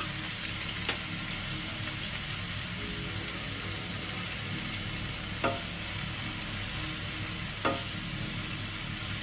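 Chopped garlic sizzling steadily in hot oil in a nonstick kadai while it is stirred with a silicone spatula, with a few short sharp knocks of the spatula against the pan.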